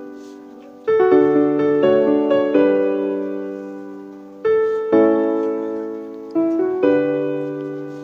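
Background piano music: slow, gentle chords, each struck and left to fade before the next.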